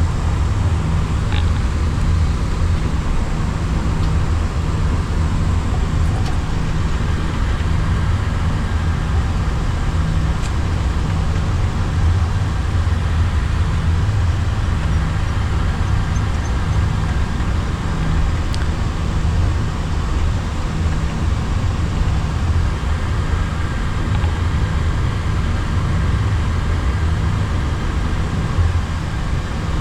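Steady low rumble on the flight deck of an Airbus A340-300 taxiing after landing, with a faint steady high tone above it.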